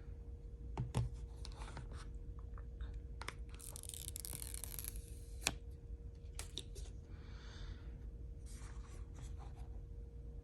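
Packaging being handled and opened: scattered light clicks and taps, a tearing, rustling stretch of about a second and a half starting about three and a half seconds in, and a sharp knock about two seconds later.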